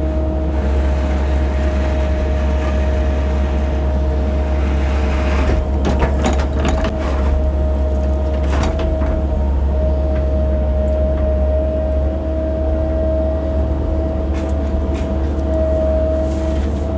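Cat 308 mini excavator's diesel engine running steadily under load, with a steady whine over the low engine drone. A short run of sharp knocks comes about six seconds in.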